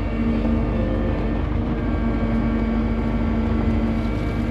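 Cat 289D3 compact track loader's diesel engine running steadily at high throttle.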